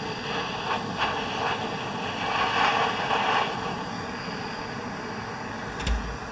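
Gas torch flame burning with a steady hiss while heating a cable end to tin it with solder, swelling a little partway through; a short knock near the end.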